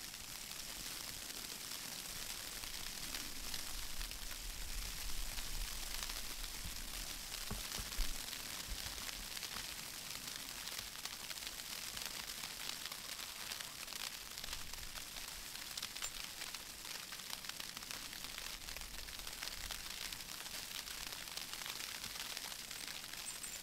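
Steady high hiss of snow falling, with faint fine ticking throughout. A low wind rumble on the microphone comes a few seconds in, with a single soft knock.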